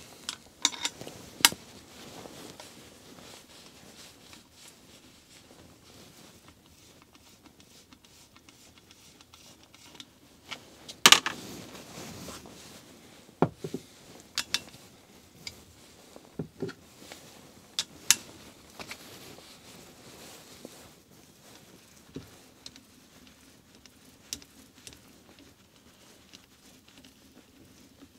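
Scattered clicks and knocks of metal hand tools against a Headshok fork's telescoping unit as it is worked on by hand, the loudest about eleven seconds in.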